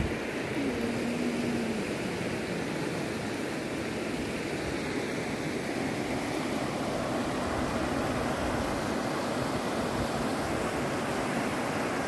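The Soča, a clear mountain river, rushing steadily over stones and shallow rapids.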